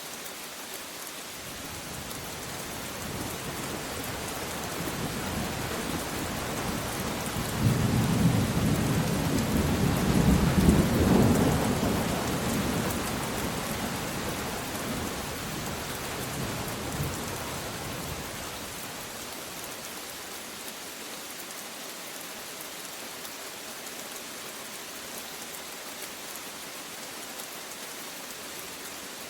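Steady rain falling, with a long roll of thunder that builds over several seconds, peaks about a third of the way in and rumbles away before the middle.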